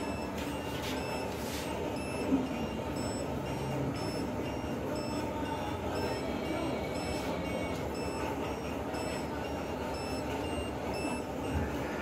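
Wireless bicycle turn signal set beeping in time with its flashing amber arrow: short, evenly spaced high beeps, a little faster than one a second. There is one brief knock about two seconds in.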